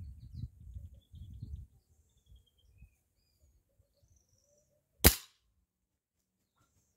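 A single shot from a Foster F-180 pre-charged pneumatic (PCP) air rifle about five seconds in: one sharp crack that dies away quickly. Before it, a low rumbling noise for the first couple of seconds.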